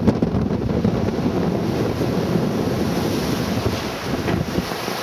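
Wind buffeting the microphone over the steady rush of sea water along a sailboat's hull under sail. The low buffeting eases near the end.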